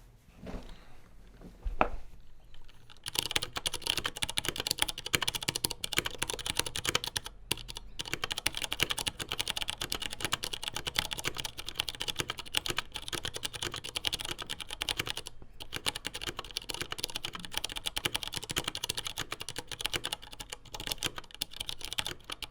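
Fast continuous typing on a custom CNC aluminium keyboard with stock Cherry MX Clear tactile switches, a 5 mm plate and Gateron keycaps. A few separate knocks come first, then dense typing starts about three seconds in, with two brief pauses.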